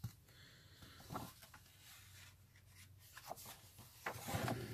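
Paper comic book being handled and its pages turned: soft page rustles and faint paper taps, louder about four seconds in as the comic is flipped open.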